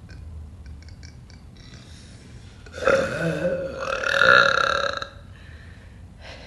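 A woman's long, loud burp of about two seconds, in two swells with the second louder, after a few faint clicks.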